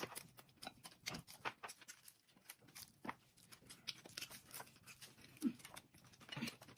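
Faint eating sounds: scattered small clicks and mouth noises of chewing, with a few slightly louder ones about three, five and a half and six and a half seconds in.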